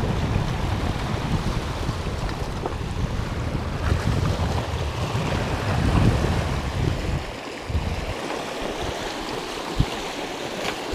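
Sea waves washing and foaming over shoreline rocks, with wind buffeting the microphone.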